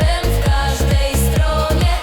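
Electronic techno music: a steady kick-drum beat under a held melody line, with no singing.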